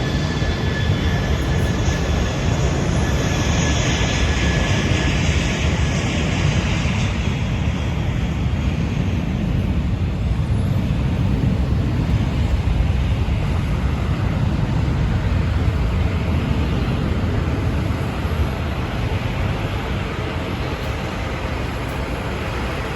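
Steady jet aircraft roar, with a high whine that fades out about seven seconds in.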